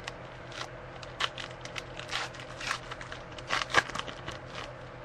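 Trading cards being handled and flipped through, with a pack wrapper crinkling: irregular light clicks and rustles, the loudest pair about three and a half seconds in.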